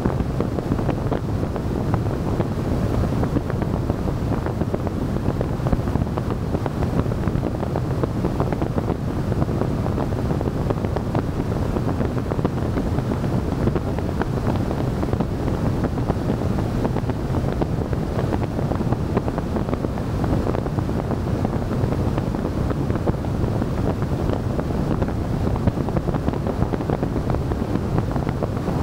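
Steady wind noise on the microphone and low road rumble from a car driving, recorded by a camera mounted on the car's roof.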